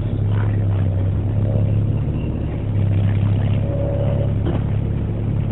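Volvo B7TL double-decker bus heard from on board, its diesel engine running with a steady low drone.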